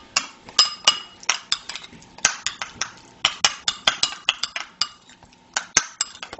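A spoon clinking and scraping against glass in quick, irregular taps, a few a second, as a mayonnaise and diced-vegetable (macédoine) mixture is mixed and spooned into a glass verrine. The taps briefly ring.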